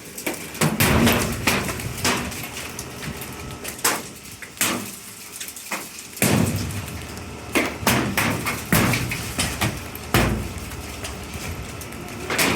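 Quarter-size hailstones hitting a metal awning in hard, irregular knocks, several a second at times, over a steady hiss of falling hail and rain.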